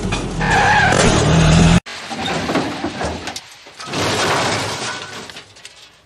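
Car sound effects with tyres skidding, in edited pieces: the first cuts off abruptly about two seconds in, then a quieter stretch that fades away.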